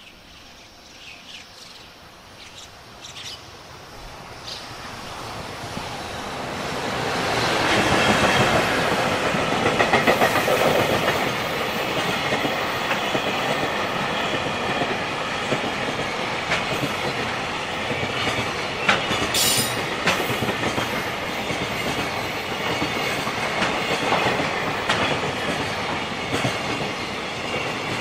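JR Freight EF210 electric locomotive and its container wagons approaching, growing louder over the first several seconds, then passing close by with a steady rumble and rhythmic clatter of wagon wheels over the rail joints, with a few brief high wheel squeals.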